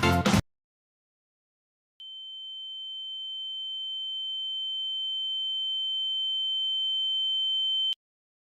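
Music cuts off sharply, then after a moment of dead silence a steady, high electronic tone sounds for about six seconds, growing gradually louder before stopping abruptly.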